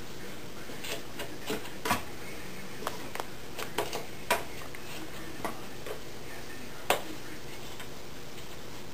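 Irregular light clicks and taps, about a dozen scattered unevenly, the sharpest about two seconds in and near seven seconds, over a steady background hiss.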